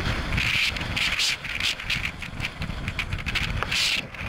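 Rustling and scraping of someone moving quickly through dry, tall grass, in irregular bursts about twice a second, over a low rumble of wind on the microphone.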